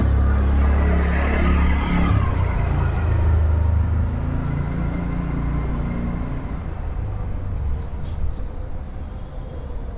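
Low rumble of a motor vehicle engine, loudest in the first half and fading away after about five seconds.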